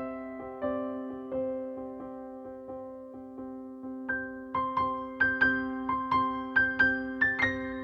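Background music: a solo piano or electric piano playing a slow, gentle melody, with the notes coming faster and higher from about four seconds in.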